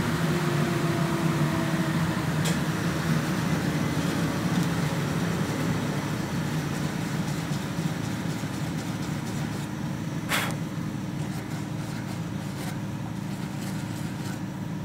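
Steady hum of a workshop dust extractor running. A fainter tone slowly falls in pitch over the first few seconds, and there is a short scuff of a hand on the carved wood about ten seconds in.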